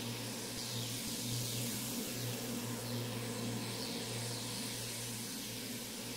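A microphone noise recording run through delay, reverb and a grain delay with its feedback turned up in Ableton Live, making a washy ambient texture. A steady low drone sits under an airy hiss, with faint falling sweeps in the highs.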